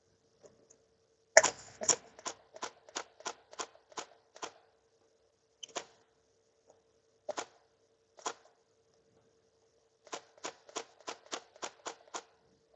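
Salco Rapid 106E electric stapler driving staples, fired by its foot pedal: a quick run of about nine sharp snaps, then three single strokes a second or so apart, then another fast run of about eight near the end. A faint steady hum sits underneath.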